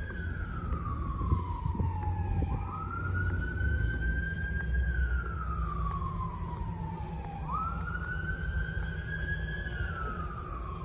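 Emergency vehicle siren in a slow wail: twice it climbs quickly, holds, then slides slowly down over a couple of seconds, each cycle about five seconds long. A steady low rumble runs underneath.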